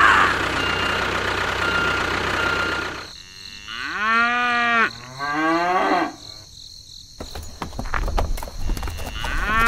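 An engine running steadily, which cuts off about three seconds in; then a cow moos twice in long calls that bend in pitch, with another moo starting near the end.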